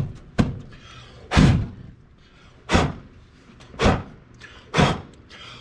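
About five muffled thumps roughly a second apart: a shop rag patted down over small flames on top of the carburetor to smother a fire started by starting fluid sprayed to find a vacuum leak.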